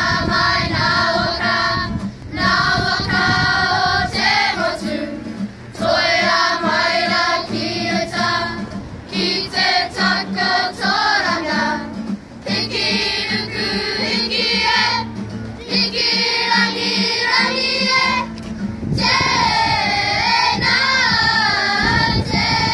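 A children's kapa haka group singing a Māori action song together in unison, phrase after phrase, with short breaks between lines.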